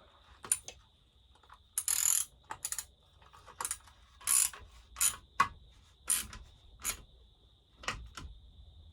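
Ratchet wrench clicking in short, uneven strokes, about a dozen swings, as a bolt on a McCulloch chainsaw is run down tight.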